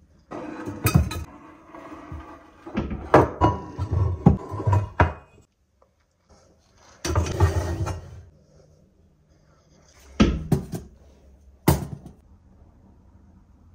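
Cookware being set into a kitchen cabinet: a coated frying pan and a stainless steel steamer basket knock and clatter against a wire shelf riser and the cabinet floor. The knocks come in several short clusters, with a couple of single knocks near the end.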